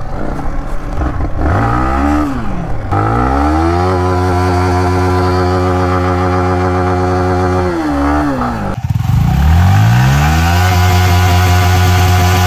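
Engine of the off-road vehicle revving hard and held at high revs. The pitch dips and climbs back twice, once early on and once sharply about two-thirds through.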